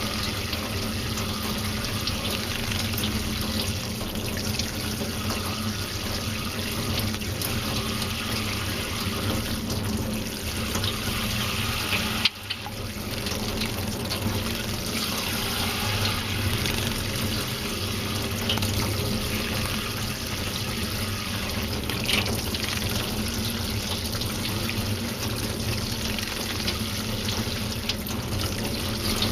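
Steady running water, with a brief break about twelve seconds in.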